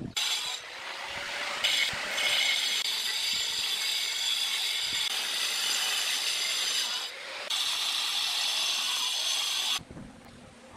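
Handheld angle grinder cutting through a natural stone tile: a high, steady whine with gritty grinding. It eases off briefly twice as the disc comes out of the cut, then stops near the end.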